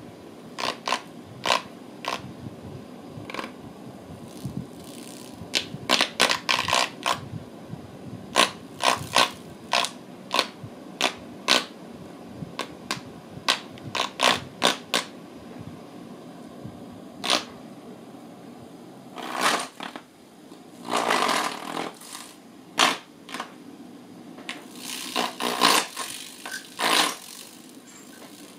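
Sharp, irregular clicks and taps as a Bengal cat paws at a small black ball-shaped electric fan, over a steady hum. Longer scraping rattles come about two-thirds of the way through and again near the end.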